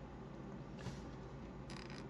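Faint handling of a plastic action figure, with a soft click a little under a second in and a brief rustle near the end over quiet room hiss.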